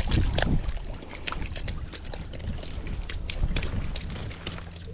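Small trout splashing and flopping in the shallows as it is pulled up onto the bank, a scatter of short splashes and slaps over a low rumble of wind on the microphone.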